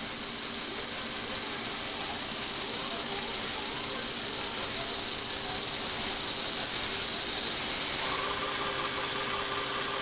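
Lego Technic electric motor driving its gear train, turning and tilting a toy car on a platform: a steady mechanical whir with a hum of gear tones. A second, higher tone joins about eight seconds in.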